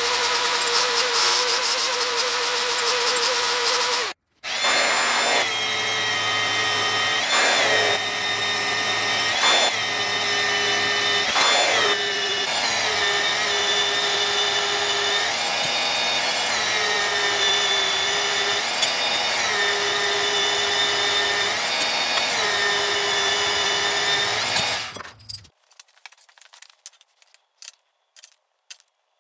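Angle grinder grinding the edge of a small steel plate, its motor whine steady but sagging briefly in pitch several times as the disc is pressed into the metal. It cuts out for a moment about four seconds in and stops near the end, followed by a few faint clicks.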